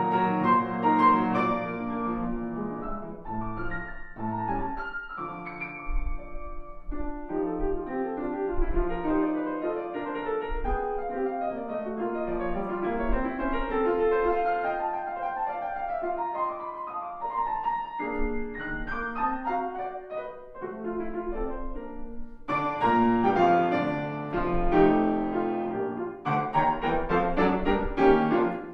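Solo grand piano playing classical music: chords and melodic lines with held notes, breaking into fast, louder runs about three-quarters of the way through.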